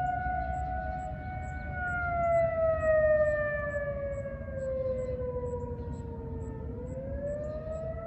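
Several outdoor warning sirens from neighbouring towns sounding together during a test, a mix of Federal Signal 2001, 1003A and 1000AT sirens and a Whelen WPS-4000. The loudest slides slowly down in pitch and starts rising again about seven seconds in, the wail of the attack signal, while other sirens hold higher tones above it. The sound swells loudest about two to three seconds in.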